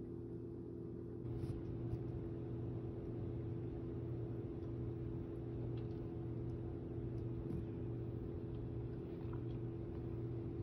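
A steady machine hum with a low drone, stepping up slightly about a second in, with a few faint clicks over it.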